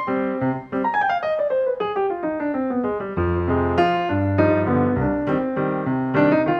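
Background piano music: quick notes over a bass line, with a run stepping down the keyboard from about a second in.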